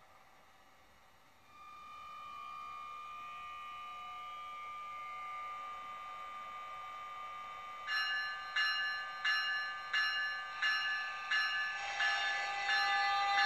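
HO-scale Atlas ALP-45DP model locomotive's onboard sound system playing through its small speaker: a steady locomotive hum comes up about one and a half seconds in. From about eight seconds in the locomotive bell rings about once every 0.7 seconds, and near the end a horn-like tone joins it.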